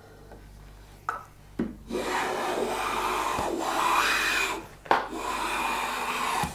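Long metal hand plane, run on its side along the bench top, taking a shaving off the edge of a softwood board: two light knocks as it is set down, then a long planing stroke of about two and a half seconds, a knock, and a second shorter stroke.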